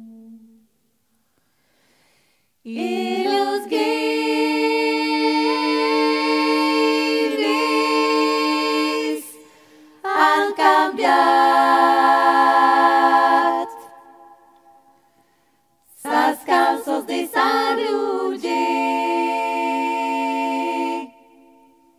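Women's vocal group singing Occitan polyphony a cappella: three phrases of held chords in several voices, separated by short silences.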